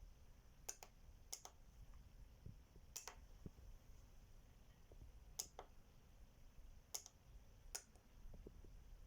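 Sharp small clicks, mostly in quick pairs, spaced irregularly one to two and a half seconds apart against near silence.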